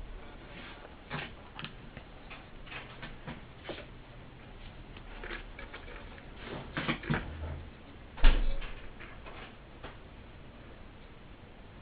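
Scattered small clicks and taps of hands handling a woofer's cone and frame and a glue syringe during a surround repair, with a heavier knock about eight seconds in.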